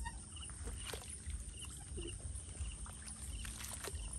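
Wading steps splashing and sloshing through shallow, weedy marsh water, over a low rumble. Short chirps repeat faintly in the background.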